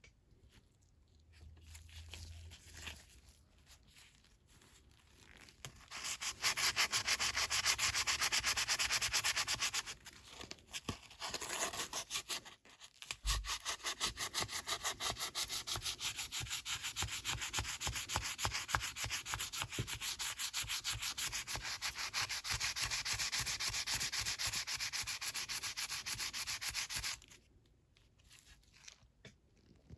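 Rapid, even abrasive scrubbing on the rusty metal of a vintage Snap-on T-handle, stripping off rust. It starts about six seconds in, breaks off briefly twice with a low knock in the second break, and stops a few seconds before the end.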